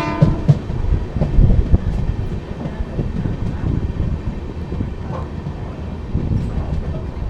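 Train running past on the track: a steady low rumble with irregular clanks and knocks of wheels and wagons. A pitched horn-like note ends right at the start.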